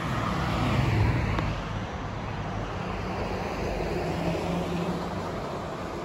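Road traffic: a car passing, loudest about a second in, then steady tyre and engine noise with a low hum.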